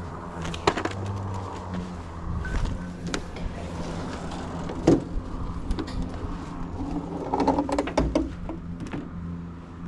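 Metal knocks and rattling clatter from an enclosed trailer's ramp gate being handled and raised, a sharp knock about five seconds in and a burst of clatter near the end, over the steady hum of an idling engine.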